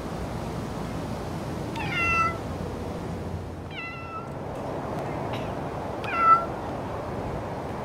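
A silver tabby cat meowing three times, short calls about two seconds apart, the last one the loudest.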